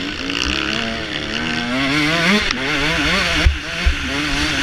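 Motocross dirt bike engine heard from the rider's own bike, revving up and down as the throttle is worked through the turns and straights, with a sharp rise and drop about two seconds in. A couple of low thumps come near the end.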